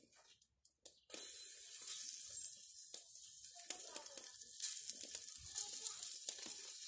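Cubes of pork fat (salo) sizzling as they drop into a hot cauldron over a wood fire. The sizzle starts suddenly about a second in and goes on as a steady hiss with small crackles.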